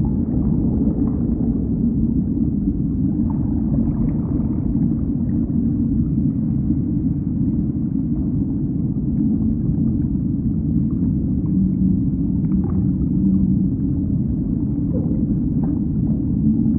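Underwater ocean ambience: a dense, steady low rumble with faint drawn-out low tones that come and go, and scattered small clicks and pops.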